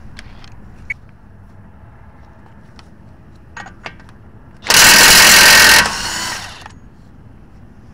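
DeWalt cordless impact wrench hammering on a Toyota Sienna's front axle hub nut to break it loose: one loud burst of about a second, then a weaker run for under a second before it stops. A few light clicks come before it as the socket is seated on the nut.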